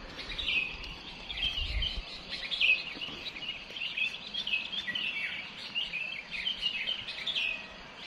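A dawn chorus of many small songbirds chirping together: a dense, continuous scatter of short, quick, overlapping chirps and twitters.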